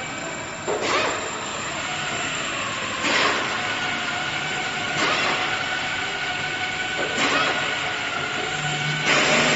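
CNC router running: a steady high whine with a swell of cutting noise about every two seconds.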